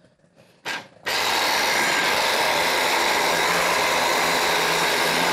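Small electric food chopper running: a short pulse just under a second in, then, after a brief stop, a steady run of several seconds as it grinds red capia pepper, green pepper and onion to a paste.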